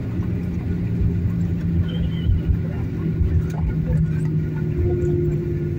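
Jet airliner's cabin on the landing roll: a steady low rumble from the wheels on the runway and the engines, with spoilers deployed as the plane slows after touchdown. A steady low hum runs under the rumble, joined by a higher hum near the end.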